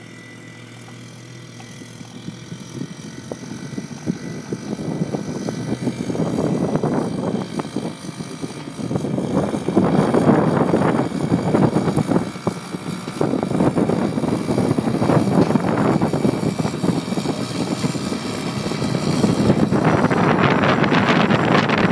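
Ultralight aircraft's engine and propeller running on its takeoff roll, growing steadily louder as it comes closer and then staying loud, with the sound swelling and fading in waves.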